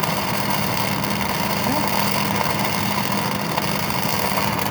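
Flux-cored arc welding on steel pipe: a steady, unbroken arc crackle with a constant hum underneath.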